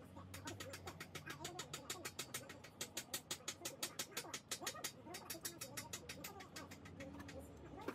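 Rapid, even metallic clicking, about seven clicks a second with a brief pause after about five seconds: the links of the cam chain ticking one by one through the cylinder's chain tunnel as the cylinder is slid down its studs.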